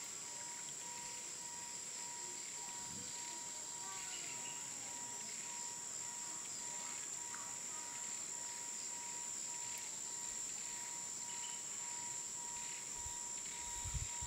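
Steady high-pitched electrical whine with a fainter lower tone over quiet background hiss, a few faint ticks, and a couple of soft low thumps near the end.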